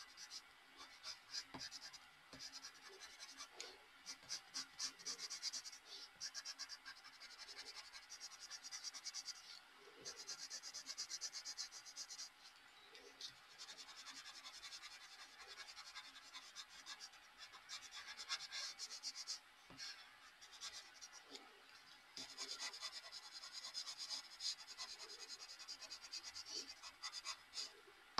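Colored pencil scratching on paper in fast back-and-forth shading strokes, coming in runs with brief pauses between them.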